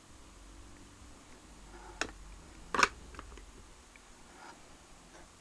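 Handling knocks of a revolver against its clear acrylic display stand as it is turned and set down: a sharp click about two seconds in and a louder knock a little under a second later, then a few faint ticks.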